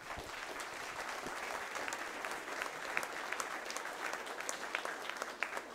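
Audience applauding, steady hand-clapping that starts suddenly and carries on without a break.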